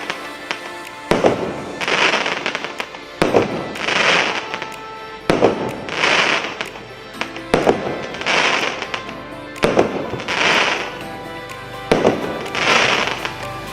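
Consumer fireworks cake of 0.8-inch shots firing at a regular pace, roughly one every two seconds. Each shot is a bang followed by about a second of dense crackling from its crackling-cloud effect.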